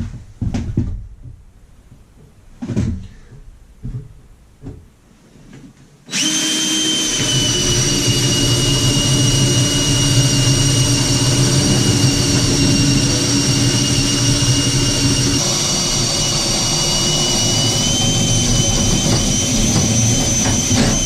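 A few light knocks and scrapes, then about six seconds in a power tool's motor starts suddenly and runs steadily with a high whine for about fifteen seconds, winding down at the very end.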